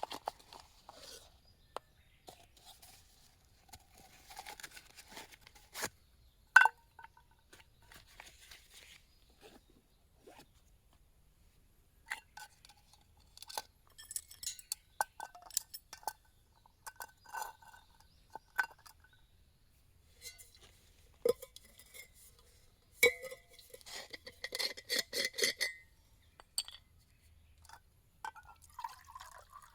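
Scattered clinks and knocks of metal camp cookware being handled, with one loud knock about seven seconds in and a longer run of ringing rattles later on.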